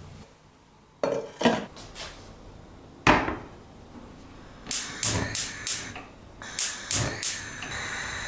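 Sharp knocks and clinks of hard objects being handled and set down, three single knocks followed by two quick clusters of clicks.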